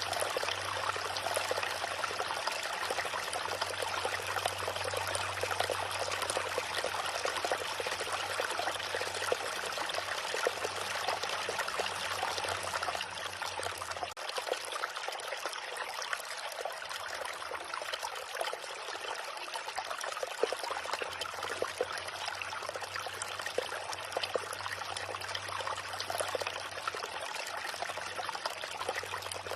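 A small river flowing and babbling steadily over its bed, with a faint low hum underneath that drops out for several seconds in the middle.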